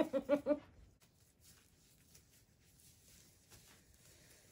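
A woman's voice for a moment at the start, then faint soft clicks and scuffs as a paint-covered ceramic tile is spun by hand on its stand.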